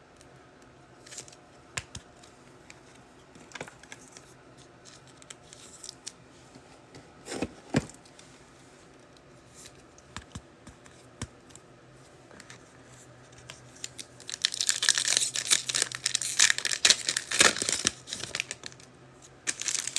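Foil trading-card pack wrapper being handled and torn open. Scattered rustles and clicks give way, about fifteen seconds in, to several seconds of dense crinkling and tearing.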